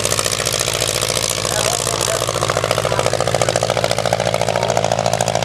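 Pioneer-era airplane's piston engine running steadily, with a rapid, even firing beat.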